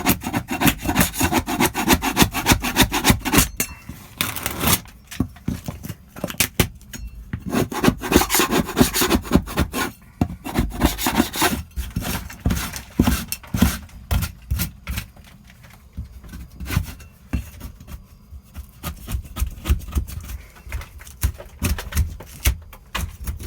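Hand tool scraping and tearing at a damp, delaminating plywood wall panel in rapid repeated strokes, in several bouts with short pauses between.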